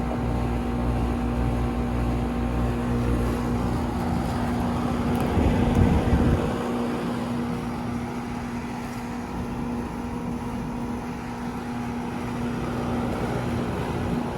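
Outdoor central air-conditioner condenser unit running: a steady electrical hum with its fan's even rush. About five to six seconds in there is a short burst of low rumble.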